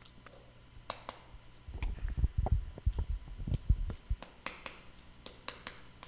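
Chalk tapping and scraping on a blackboard as words are written, heard as scattered sharp clicks, with a cluster of low thumps in the middle.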